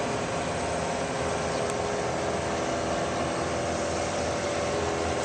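A steady mechanical hum with several sustained tones over a noisy rush, unchanging throughout.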